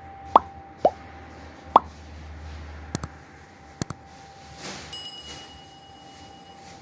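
Subscribe-button animation sound effects: three quick bubble pops in the first two seconds, two double mouse clicks around three and four seconds in, then a bell notification chime held for about a second and a half.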